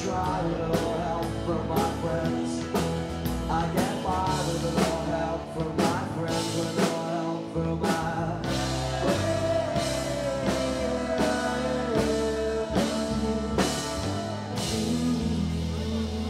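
Live rock band playing: a drum kit keeping a steady beat under electric bass and guitar, with a held melody line wavering over the top.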